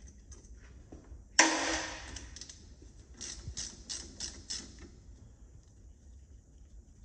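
3/8-drive ratchet with a 12 mm socket undoing a brake caliper retaining bolt. There is one loud, sharp crack about a second and a half in, then a quick run of about six ratchet clicks.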